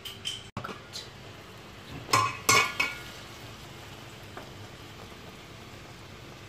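Metal pot lid being lifted off a cooking pot, with a few light clinks and then two loud ringing clanks of metal on metal a little after two seconds in.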